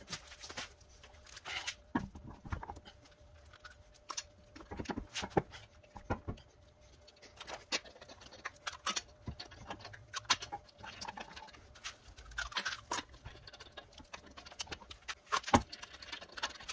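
Irregular metallic clinks, jingles and knocks of a car wheel and its lug nuts being handled and fitted onto the hub.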